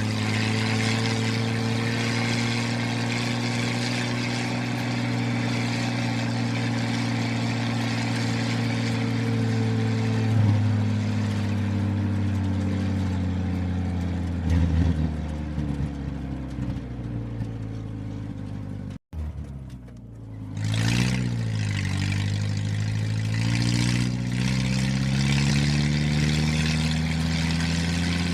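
Engine sound of the toy offroad jeeps: a steady, humming engine note that slowly shifts in pitch, cuts out abruptly for a moment about two-thirds of the way through, then dips and climbs back up like a rev before running steadily again.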